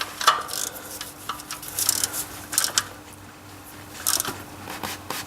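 A hand tool tightening the engine's sump plug: irregular sharp metallic clicks, some in short quick clusters, with brief pauses between.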